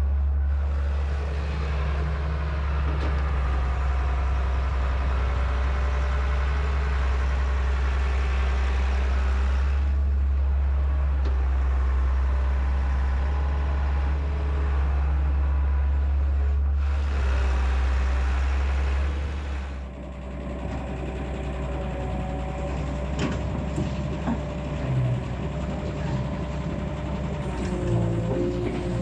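Heavy diesel engine of a working excavator running steadily with a deep, loud rumble. About two-thirds of the way through the sound shifts to a quieter engine note with a few clanks.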